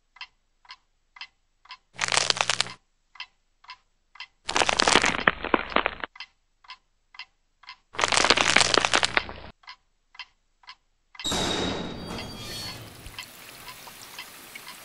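Clock-like ticking at about two ticks a second, broken four times by loud bursts of harsh crackling noise with a low buzz underneath, each lasting about one to one and a half seconds. Near the end the ticking sinks under a quieter steady hiss.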